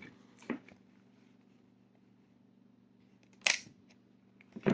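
Sharp clicks from handling an old Sony 8mm camcorder: a faint one about half a second in, a loud one about three and a half seconds in and another near the end. A faint steady hum runs underneath.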